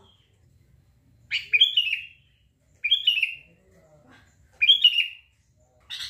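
Sooty-headed bulbul (kutilang) calling: three short bursts of quick, clipped notes, each burst a little cluster of falling notes, about a second and a half apart.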